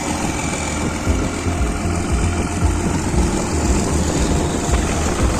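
Freshly overhauled Isuzu 6BG1 six-cylinder diesel engine idling steadily on its test run, with oil pressure holding.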